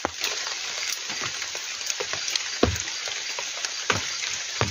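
Heavy rain falling steadily on a tent, with a few louder individual drops striking.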